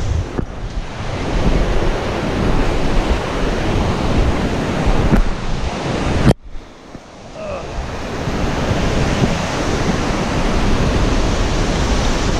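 Wind buffeting the microphone over the steady rush of a whitewater river below. A sharp knock about six seconds in, after which the noise briefly drops before returning.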